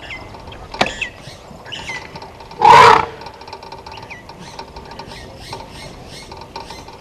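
An elephant's short, loud trunk blast, about two and a half seconds in, over faint bird chirps.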